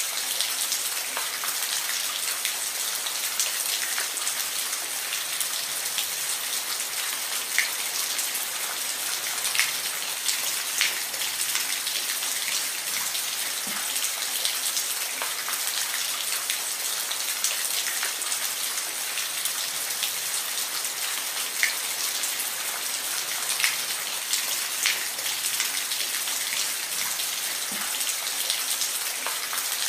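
Steady rain falling, an even hiss with scattered louder individual drops ticking on a hard surface.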